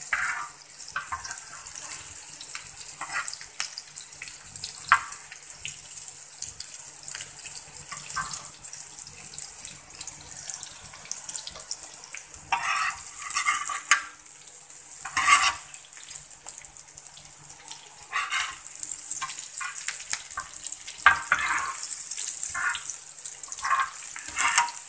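Omelettes frying in hot oil on a flat griddle (tawa): a steady sizzle, broken by clicks and scrapes of a metal spatula and tongs against the pan, loudest for a few seconds around the middle and again near the end.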